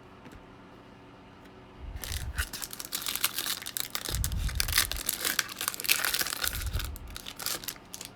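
A trading card pack's wrapper being torn open and crinkled by hand, starting about two seconds in and lasting some six seconds, with three low bumps from handling.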